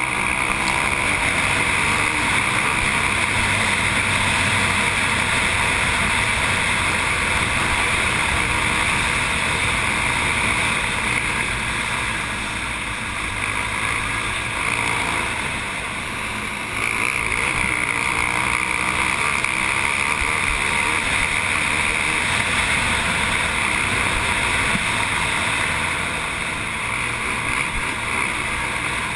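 Racing quad (ATV) engine running hard at speed over a dirt track, heard from a camera mounted on the quad. The sound dips a little around the middle and then comes back up.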